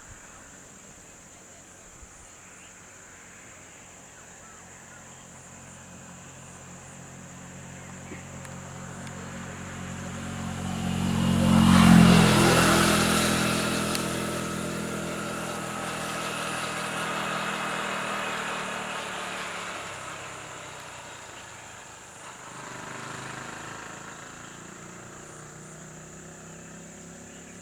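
A motor vehicle passing by: its engine grows louder to a peak about halfway through, then fades away, with a smaller swell of engine sound near the end.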